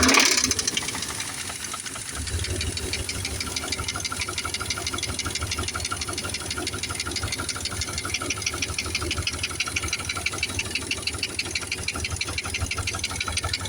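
2000 Dodge Dakota's 4.7-litre V8 running with a steady, rhythmic heavy knock. The owner hears it as coming from both sides of the engine. A louder surge at the start settles to an even idle about two seconds in.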